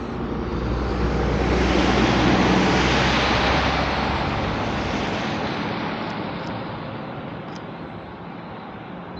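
A motor vehicle passing close by on a wet, slushy road. Tyre hiss builds, peaks about two and a half seconds in and fades slowly, with a low engine drone that dies away about halfway through.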